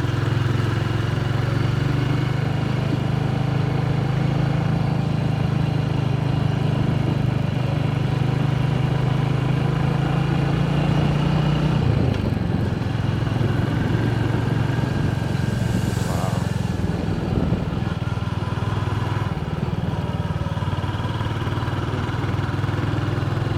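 Motorcycle engine of a Philippine trike running steadily while riding along a road. The engine note drops about halfway through, then shifts again later.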